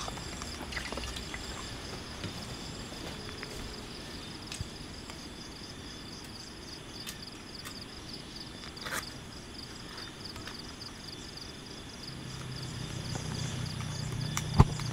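Insects chirring steadily in high, unbroken ambience. A faint click comes about nine seconds in, and a sharp click near the end, as low background music fades in.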